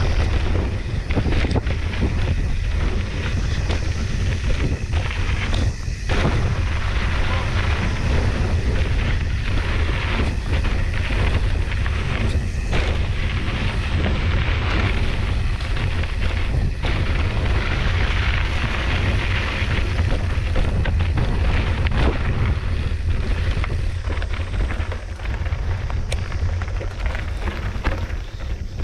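A 29er cross-country mountain bike riding a dirt trail: wind rushing over the microphone with a deep rumble, and many knocks and rattles as the bike jolts over bumps.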